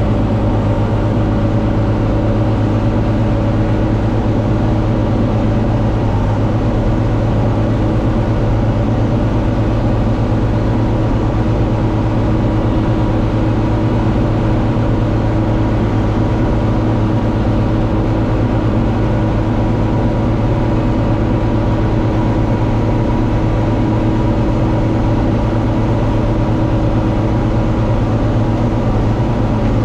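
John Deere 4250 tractor's six-cylinder diesel engine running steadily under load while it drives a Kuhn VB 3155 round baler.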